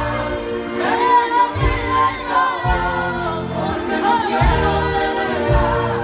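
A young girl singing a song into a microphone, backed by a live band with bass notes and drum hits.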